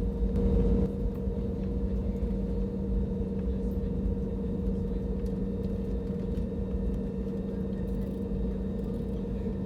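Steady airliner cabin noise from a window seat: a constant low rumble of engines and airflow with a steady hum.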